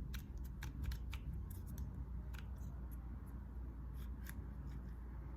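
Scattered small clicks and light scrapes of a tool and metal parts being handled while the motor mount screws are tightened on an RC car, over a low steady hum.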